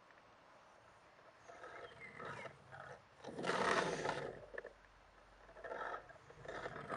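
Friction-powered (inertia) toy race car pushed along a table, its flywheel gearing whirring in two short spells, the louder one about halfway through.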